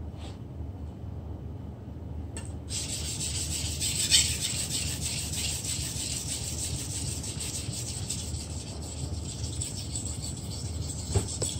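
Steel blade of a long fish processing knife being stroked across a whetstone: a steady scraping hiss that begins about two and a half seconds in.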